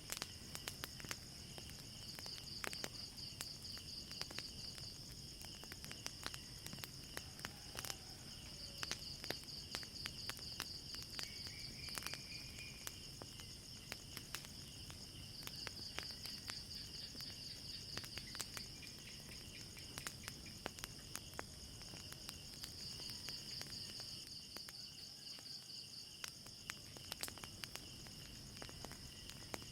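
Night insects, crickets among them, chirping in a steady pulsing chorus, over the irregular sharp pops and crackles of a burning wood fire.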